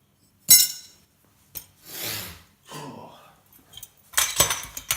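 Metal parts of an old light fitting being handled and knocked: a sharp ringing metallic clank about half a second in, a brief scraping rub, then a quick run of clinks and clanks near the end.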